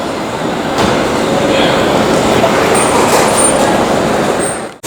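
Loud, steady city street noise: a dense traffic rumble with a few faint high squeals in the second half, cut off abruptly near the end.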